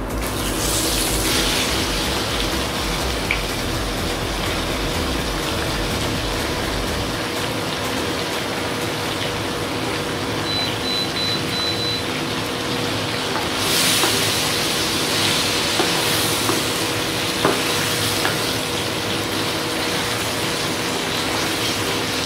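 Sliced coccinia (ivy gourd) sizzling steadily in hot oil in a frying pan, the sizzle swelling a little past halfway, with a spatula starting to stir the pieces near the end.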